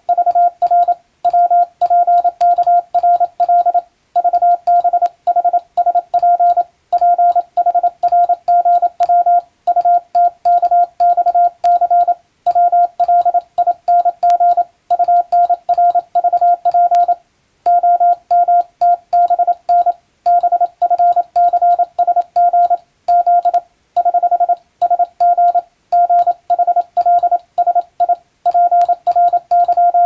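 Hand-keyed Morse code (CW) on a straight key: a single steady beep switched on and off in quick dots and dashes, sending five-letter code groups with short pauses between them. Partway through and again near the end, a run of eight dots, the Morse error sign, is sent before the group is re-sent.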